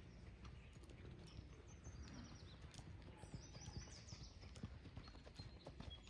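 Faint hoofbeats of a horse walking on a sand arena footing, as scattered soft clops.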